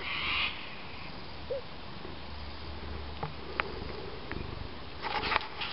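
A ginger cat sniffing at very close range, in short noisy puffs at the start and again near the end, over a low steady buzz.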